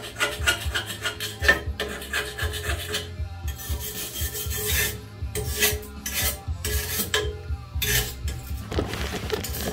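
Hand wire brush scrubbing rust off a metal truck step rail in quick back-and-forth scraping strokes.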